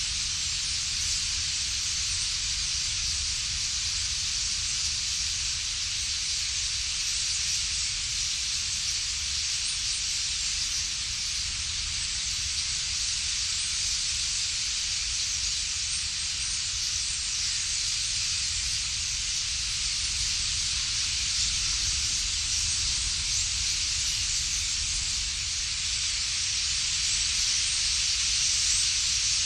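Steady hiss from a huge flock of common starlings: the massed chatter of a murmuration settling to roost in reeds, over a low rumble, getting a little louder near the end.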